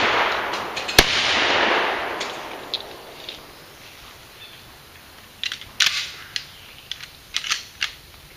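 One shotgun shot from a break-action clay gun about a second in, trailing off in a long echo through the trees. Later come several light clicks as the gun is broken open and handled.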